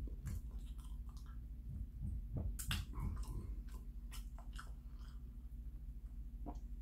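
Close mouth sounds of a man eating: chewing and sipping a drink from a glass mug, heard as irregular wet clicks and smacks.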